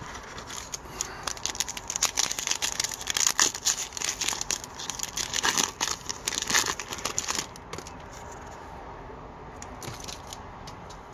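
Foil hockey card pack torn open and crinkled by hand, a dense crackling for about seven seconds, then a few faint rustles near the end.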